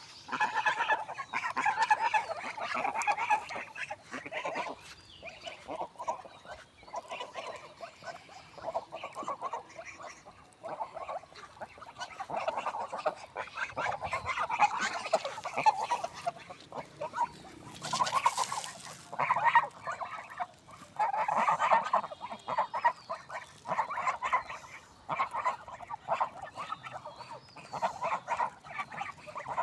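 Swans calling repeatedly in bouts of short pitched calls, with a brief rushing noise about 18 seconds in.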